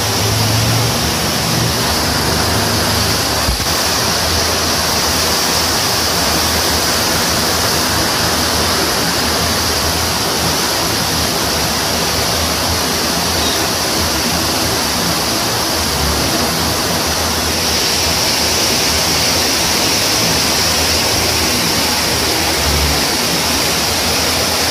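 Muddy floodwater rushing past in a fast, steady torrent under torrential rain.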